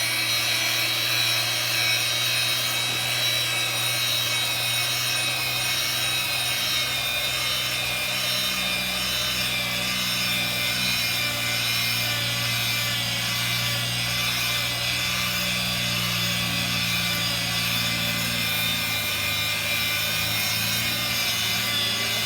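Power sander grinding concrete, running steadily with a constant motor whine over gritty scraping.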